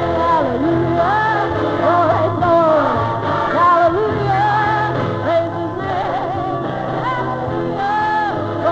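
A song with a singing voice over band accompaniment.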